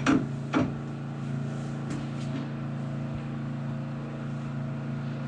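Vacuum cleaner running with a steady, even hum. Two short, louder sounds come near the start.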